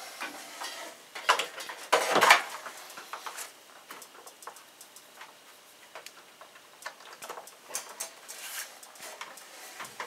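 Handling of electrical plugs and cords at a plastic extension-cord reel: plugs being pushed into its outlets, with scattered light clicks and knocks and a louder clatter about two seconds in.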